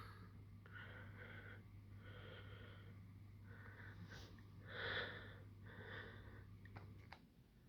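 Faint breathing through the nose close to the microphone: a few soft breaths, the loudest about five seconds in. A steady low hum runs underneath and cuts off shortly before the end.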